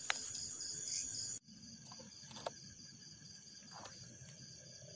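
Night insects, crickets, chirping in a steady pulsing trill. The background hiss drops away abruptly about a second and a half in, leaving the crickets faint, with a couple of soft clicks.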